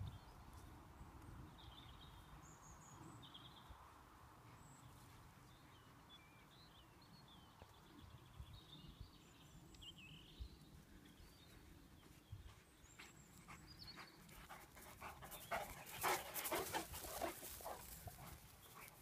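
Irish wolfhounds on a morning run across rough grass: mostly faint outdoor quiet with scattered small high chirps. About fifteen seconds in comes a louder stretch of quick rustling and dog panting as the hounds come close.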